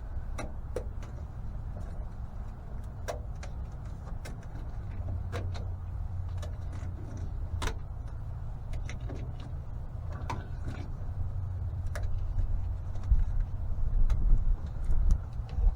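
Irregular small clicks and crackles of hands working on a wiring harness, peeling electrical tape off its casing, over a steady low rumble that swells near the end.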